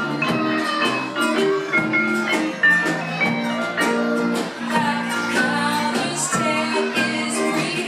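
Live band playing an upbeat song on electric guitar, bass guitar, keyboard and ukulele, with some singing and a steady percussive beat.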